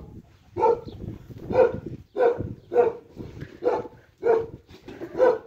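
A dog barking over and over at a steady pace, a little more than one bark a second.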